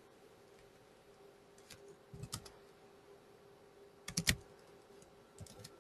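Computer keyboard typing and mouse clicks in three short clusters: one about two seconds in, a louder one about four seconds in, and one just before the end, over a faint steady hum.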